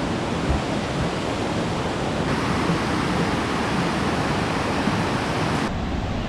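Steady rushing noise of a large waterfall. The sound gets brighter about two seconds in and shifts again near the end.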